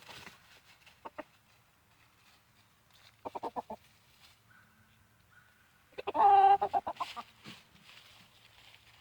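Chickens clucking in short, quick runs, with one louder, drawn-out call about six seconds in.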